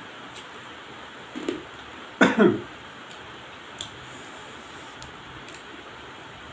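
A person eating spicy crab by hand gives a short double cough about two seconds in, over a steady hiss. A faint click follows a little later.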